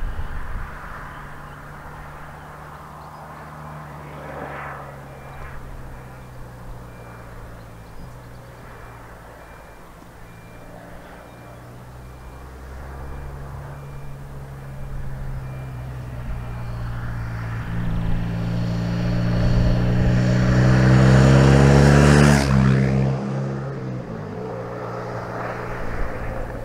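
A diesel freight locomotive's engine running under load, growing steadily louder as it approaches and dropping in pitch as it passes, about three-quarters of the way through. After it, the freight wagons roll past.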